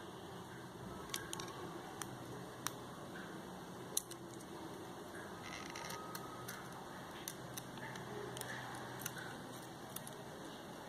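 Irregular small clicks and taps, a few of them sharp, over a steady hiss: small tools and parts being handled while a compact camera's lens unit is taken apart.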